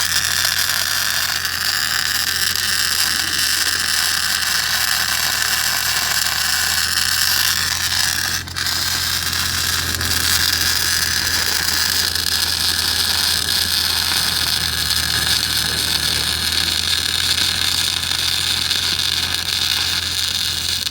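MAG welding arc running: a steady frying hiss over a low hum, broken off for an instant about eight and a half seconds in.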